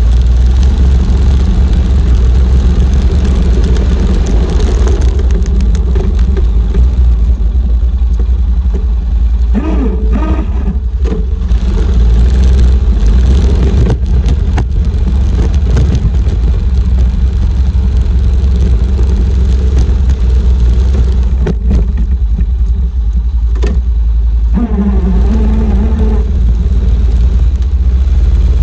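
Four-wheeler (ATV) engine running steadily.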